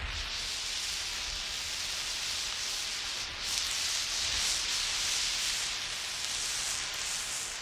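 Emergency flare burning with a steady, harsh hiss, swelling a little about three and a half seconds in.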